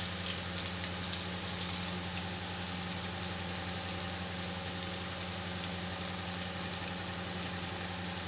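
Chopped onions with curry leaves frying in oil in a non-stick kadai: a steady sizzle with scattered light crackles, over a low steady hum.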